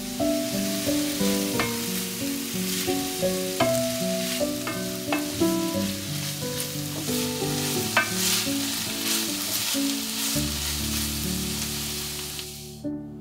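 Diced red bell pepper and onion sizzling as they fry in an enamelled cast-iron pan, stirred with a wooden spatula that clicks and scrapes against the pan. The sizzle cuts off suddenly near the end.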